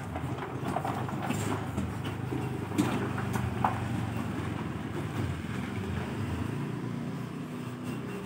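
Motor traffic passing close by on a narrow road: a car pulling away and a motor scooter riding past, engines running steadily. Two sharp clicks or knocks come about three seconds in.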